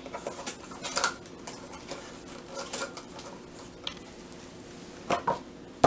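Light handling noise: scattered crinkles of foil wrappers and taps of a small plastic jewelry box, with a couple of sharper clicks about five seconds in.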